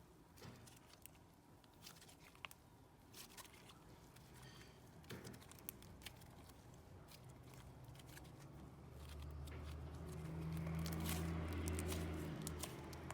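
Heavy butter slime being stretched, poked and squished: faint scattered sticky clicks and crackles. A low hum rises about nine seconds in and fades near the end.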